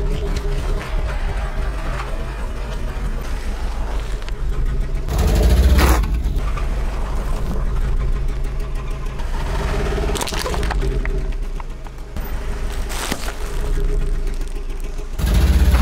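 Car engine running as a tyre rolls slowly over food on asphalt, crushing soft snack bars and a bagged loaf of bread with cracks and crunches. The engine and tyre noise surge about five seconds in and again near the end, with sharp cracks in between.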